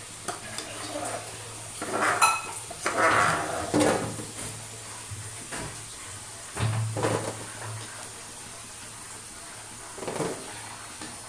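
A slotted metal spoon scraping and clinking against a metal kadhai and a steel plate as deep-fried potato balls are lifted out of the hot oil, which sizzles under it. The clatters come in a few separate bouts.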